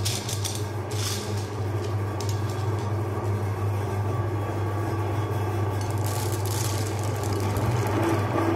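A steady low mechanical hum throughout, with brief bursts of clattering about a second in and again about six seconds in, as hard candy balls are handled.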